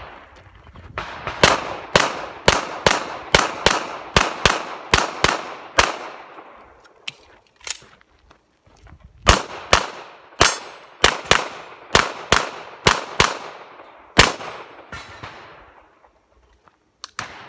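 Pistol fired rapidly in two strings of about fifteen shots each, three to four shots a second, each shot followed by a short echo. There is a pause of about three seconds between the strings, and two more shots come near the end.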